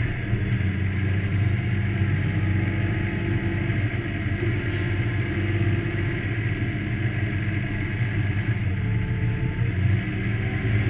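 Fendt 724 tractor's six-cylinder diesel engine running steadily under load as it pulls a six-furrow plough, heard from inside the closed cab as an even, low drone.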